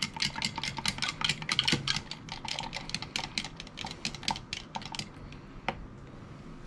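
Wooden chopstick stirring ice in a glass jar of cocktail: the ice cubes and stick clink against the glass in quick light clicks, several a second. The clicking fades out about five seconds in, with one last click shortly after.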